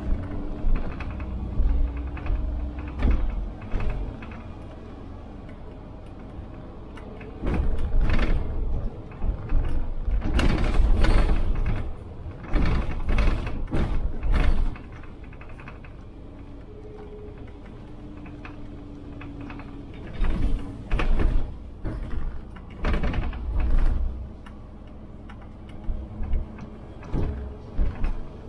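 City bus in service: irregular clattering and knocking from inside the bus in two spells, over a steady low engine rumble.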